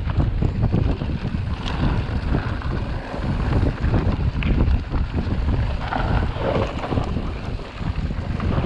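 Wind buffeting the microphone over the low rumble of a mountain bike descending a rough dirt trail, with a constant clatter of knocks from the tyres and frame over the bumps.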